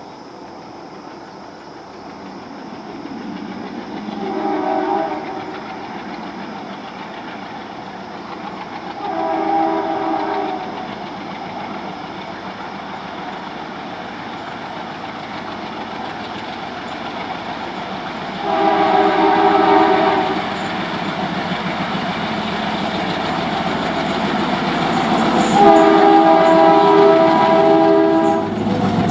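WDG-3A diesel locomotive sounding its horn four times, each blast a chord of several notes, the last the longest at about three seconds. Between the blasts its ALCO 16-cylinder engine and rolling wheels rumble, growing steadily louder as it approaches.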